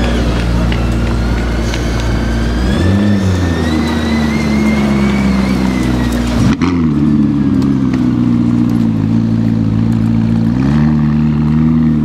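McLaren P1's twin-turbo V8 running at low revs as the car pulls slowly away, with a high whine over it for the first several seconds. The engine note lifts briefly twice, and the sound cuts abruptly about six and a half seconds in.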